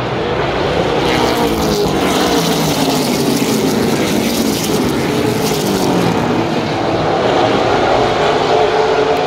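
A pack of short-track stock cars racing past, several V8 engines revving at once, their pitches rising and falling over one another as the drivers get on and off the throttle.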